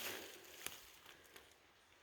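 Faint rustling of brush as someone moves through forest undergrowth, with two light clicks; otherwise nearly quiet.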